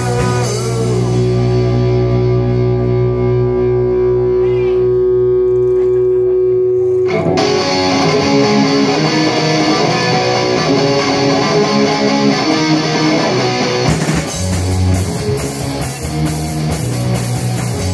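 Live rock band playing an instrumental passage on electric guitar, bass and drums. A chord rings out held for the first several seconds, then the full band with drums comes back in about seven seconds in, and the arrangement shifts again near the end.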